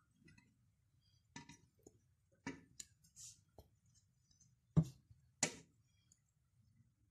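A handful of soft clicks and knocks from fried chicken pieces being set on a bed of rice in a steel pot, the loudest near five seconds in.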